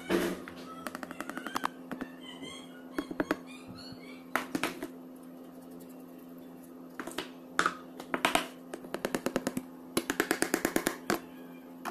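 Metal mesh sieve being tapped to sift flour into a pan: runs of rapid, light metallic taps, about ten a second, several times over.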